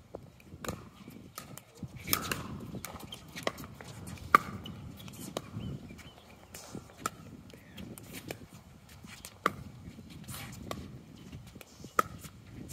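Pickleball paddles striking a hard plastic ball in a rally: a string of sharp, hollow pocks roughly one a second, the loudest about four seconds in. Wind rumbles on the microphone underneath.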